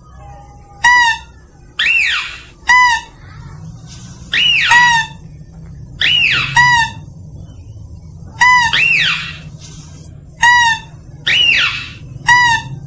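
Mouse-deer lure call: short, high squealing notes repeated about every one to two seconds, some with a quick falling sweep, meant to draw mouse-deer in.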